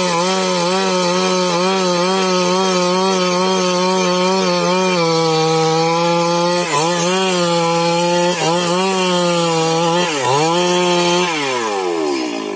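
STIHL MS 382 two-stroke chainsaw running at full throttle while ripping lengthwise through a log, its pitch dipping briefly about three times as the chain bogs in the cut. Near the end the throttle is released and the engine winds down toward idle.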